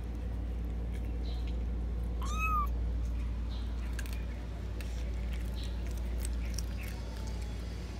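A cat gives one short meow about two seconds in, its pitch rising then falling, over faint scattered clicks.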